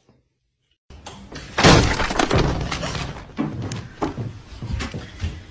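Loud crashing and clattering, like things falling and breaking, starting about a second in, with a series of further knocks after the biggest crash.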